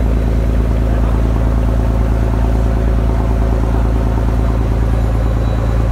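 Fishing boat's engine running steadily under way, a low, even drone.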